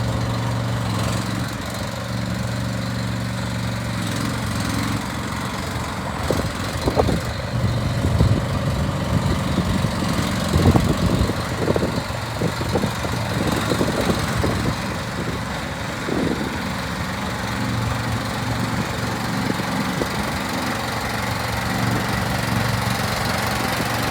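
Engine of a Starvox SV-ME12 mini hydraulic excavator running steadily, with a run of irregular knocks and clanks through the middle stretch, after which the engine runs steadily again.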